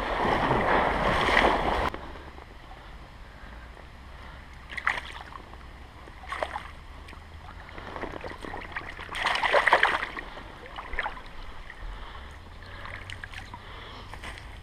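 Splashing water in a shallow stream while a landed trout is handled in a landing net. Loud for the first two seconds, then quieter with a few short splashes and handling noises; the loudest comes about two-thirds of the way through.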